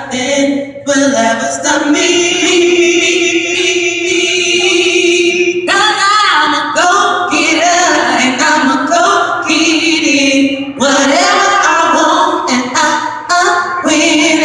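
Unaccompanied voices singing in harmony, with long held notes, sliding runs and vibrato.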